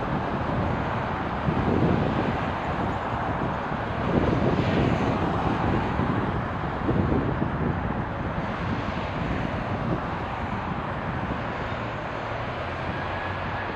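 Steady outdoor rumble of an Airbus A380 on final approach, mixed with road traffic and wind on the microphone, the level swelling and easing a few times.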